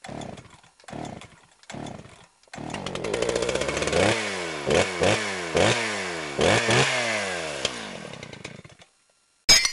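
Chainsaw engine sound in a channel intro: three short bursts, then the saw runs and is revved in a series of quick blips, its pitch falling after each, before it cuts off. A short sharp hit comes near the end.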